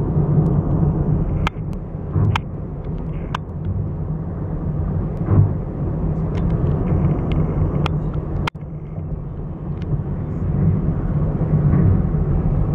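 Road and engine noise inside a moving car's cabin: a steady low rumble, with a few sharp clicks scattered through it.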